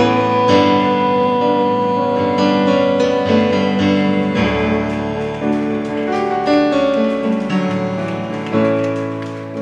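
Roland digital piano playing slow, held chords, an instrumental passage with no singing.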